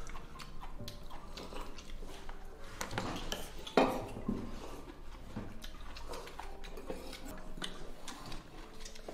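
Metal spoon clinking and scraping against a stainless steel bowl, with scattered light clicks of tableware, and one louder knock a little under four seconds in.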